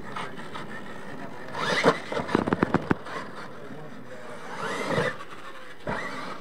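RC monster truck's motor whining as it revs up and drops back twice, with a rapid run of sharp clattering knocks about two seconds in.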